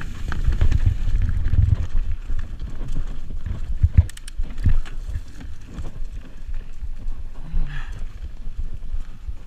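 Mountain bike rolling fast down a rough dirt singletrack, its tires rumbling over the ground and the bike rattling and knocking over roots and rocks, with a sharp knock about four seconds in.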